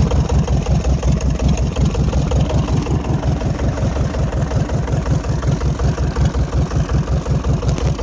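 Fishing boat's engine running steadily, with a rapid, even low chugging.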